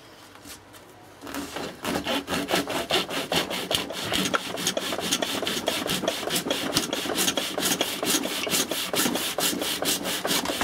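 Hand hacksaw cutting into the rubbery polymer housing and body of a 9 kV lightning arrester, in rapid, even back-and-forth strokes that start about a second in.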